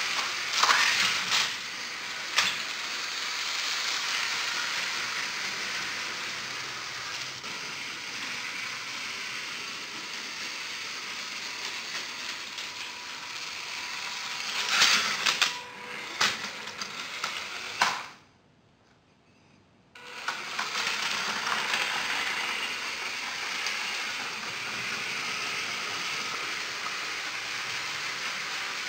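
Lego 9V train motors running, with the plastic wheels rattling and clicking over the track, and several sharp clicks. The sound drops out for about two seconds about two-thirds of the way through.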